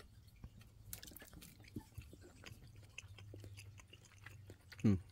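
Soft chewing and small mouth clicks of someone eating a spoonful of cookies and cream ice cream, over a faint low hum. Near the end comes one short, louder sound that falls in pitch.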